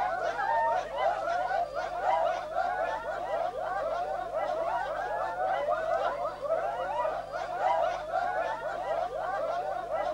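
Korowai men's war-dance chant: many voices calling and whooping together in a dense run of overlapping short rising and falling cries.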